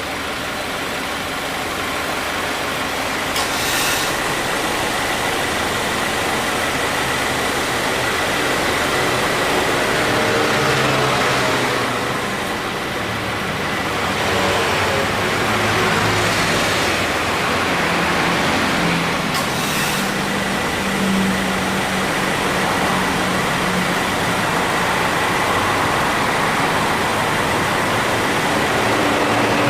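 A 2018 Subaru Forester running with the air conditioning on, its A/C compressor clutch cutting in twice about sixteen seconds apart, each time with a brief sharp noise. The noise on compressor engagement is put down to mild compressor wear. A thin steady whine sets in after the first engagement.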